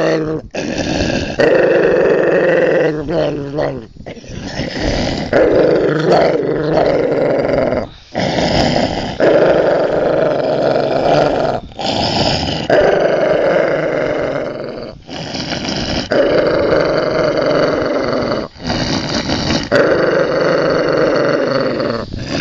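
Dog growling in long, rough rounds, each a second to a few seconds long, broken by brief pauses for breath throughout.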